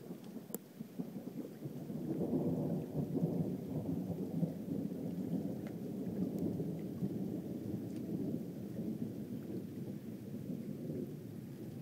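Thunder rolling: a deep rumble that builds about two seconds in, then rumbles on and slowly fades.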